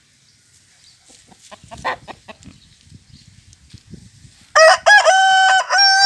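White fighting cock crowing loudly, starting about two-thirds of the way in: two short notes, then one long held note.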